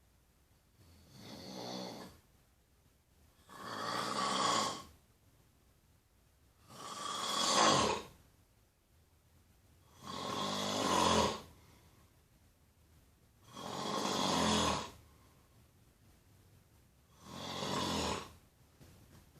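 Snoring: six loud snores, each about a second long, coming roughly every three seconds with quiet gaps between.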